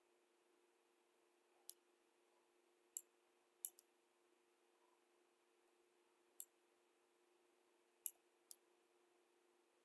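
Computer mouse buttons clicking: seven short, sharp clicks spread out, one pair in quick succession, against near silence.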